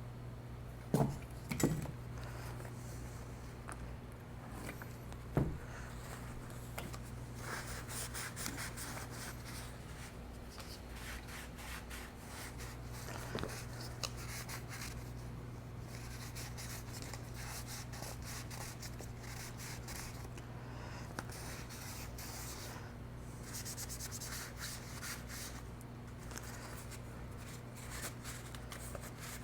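Hands rubbing and scraping over the parts of a disco light fixture, in stretches, with a few sharp knocks of parts being handled, two of them about a second in and one a few seconds later. A steady low hum runs underneath.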